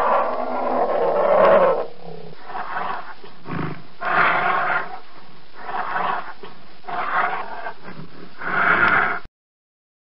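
Grizzly bear growling and roaring: one long growl, then a run of shorter growls about a second apart, cut off suddenly near the end.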